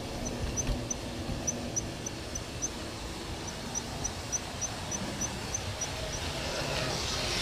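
Analogue model train running round the track, heard close up from a wagon: a steady low rumble of wheels and motor, with a faint high chirp repeating about three times a second that pauses briefly twice and stops near the end.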